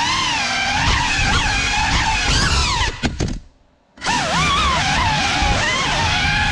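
Brushless motors and ducted propellers of a GEPRC Cinelog35 cinewhoop FPV drone whining, the pitch wavering up and down with throttle. About three seconds in the whine drops away almost to silence for nearly a second, then comes straight back.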